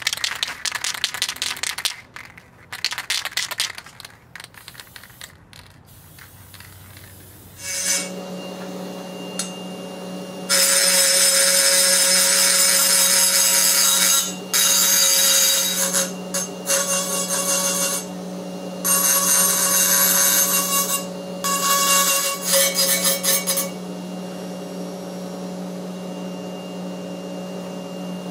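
Aerosol lacquer hissing in several short spray bursts over the carved musk ox horn for the first few seconds. About eight seconds in, an electric motor starts with a steady hum. A flexible-shaft rotary tool then grinds the bronze wolf skull casting in repeated loud bursts of a few seconds each, with the motor hum carrying on between them.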